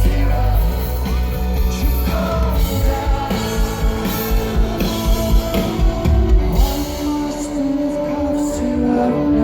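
Indie rock band playing live: a male lead singer over drums and guitar, with a long held note near the end.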